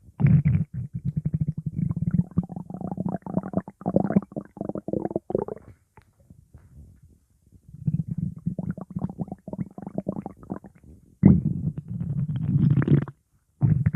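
Stomach growling: long, low, rippling growls in several stretches. It dies down for about two seconds around six seconds in, and stops briefly near the end.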